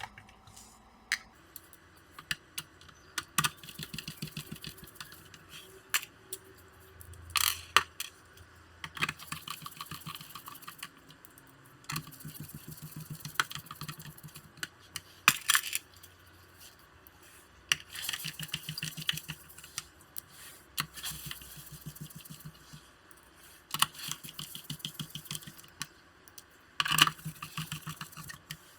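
Small screws being set into a laptop's plastic back cover and driven with a precision screwdriver: scattered sharp clicks and taps, with repeated bursts of fast ticking lasting a second or two as the screws are turned in.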